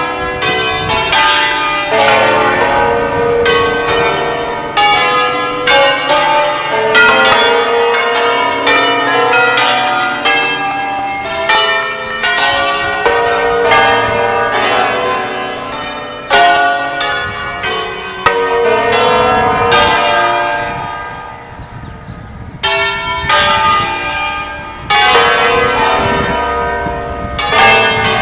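Several swinging church bells, hung on wheels in a tower, ringing together in a dense, irregular peal of overlapping strokes. The strokes die down briefly about three quarters of the way through, then pick up again.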